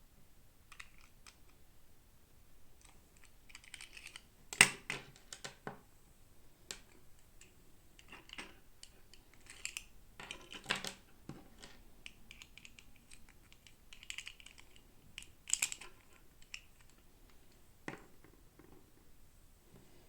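Hands unboxing miniature toys: scattered small clicks, crinkles and rustles of plastic packaging, with a few louder clusters of snaps.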